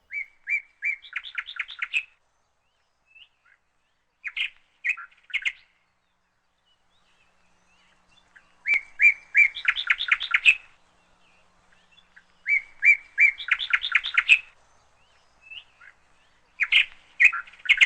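A songbird singing, five song phrases about every four seconds. Each phrase is a few spaced high notes running into a quick series of notes.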